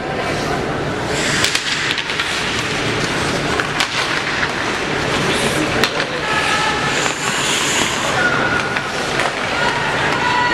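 Ice hockey game heard from the stands: a steady scrape of skates on the ice with scattered sharp clacks of sticks and puck, and crowd voices in the background.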